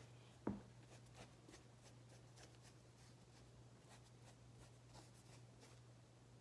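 Faint dabbing and brushing of a paintbrush on the mesh upper of a football cleat as acrylic leather paint goes on, a few light ticks, over a low steady hum. One dull thump about half a second in.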